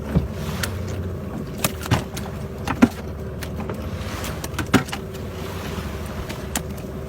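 Boat's outboard motor running steadily, with several sharp knocks over it, the loudest nearly three seconds in and another about two seconds later.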